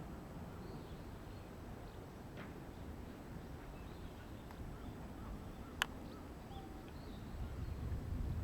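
Outdoor ambience: a steady low wind rumble with a few faint bird chirps, and one sharp click a little before six seconds in.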